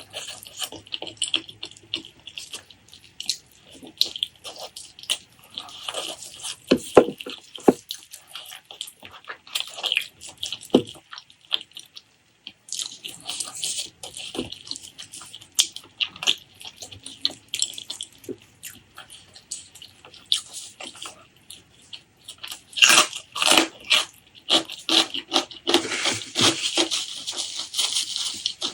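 Close-miked wet chewing, lip smacking and sticky mouth clicks of a person eating spicy pork leg curry with rice, in quick irregular runs that grow busier near the end.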